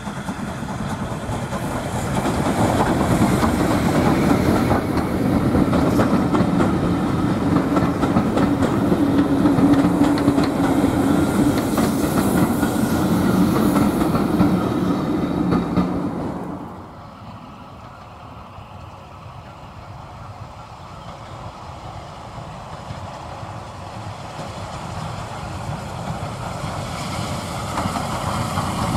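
A steam locomotive hauling a passenger train passes close by, with its wheels clattering over the rail joints. About two-thirds of the way in the sound drops off abruptly. A Bulleid 'Battle of Britain' class steam locomotive is then heard approaching from a distance, growing steadily louder.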